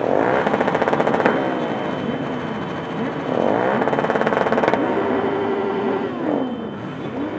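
Motorcycle engines revving in a crowd of idling bikes. A hard rev climbs for about a second and then drops back, and a second rev follows about two seconds later. Other engines rise and fall underneath.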